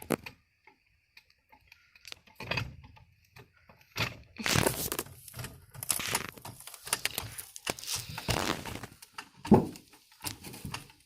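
A jack and wooden boards being set in place and worked under a car roof: irregular knocks, scrapes and rattles, with the loudest thump about nine and a half seconds in.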